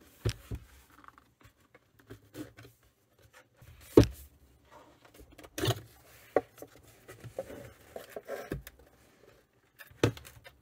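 Clicks, light scraping and knocks of a plastic subwoofer cabinet being pried apart and its panel lifted off by hand, with a sharp knock about four seconds in and a few smaller ones later.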